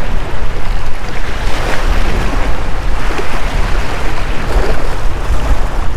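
Small waves washing and splashing against jetty rocks, with wind buffeting the microphone in a steady low rumble.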